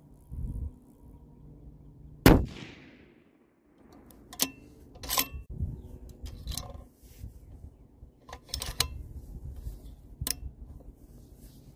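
A single loud shot from a 300 Norma Magnum bolt-action rifle about two seconds in. It is followed by a run of sharp metallic clicks and clacks as the bolt is worked to eject the case and chamber the next round.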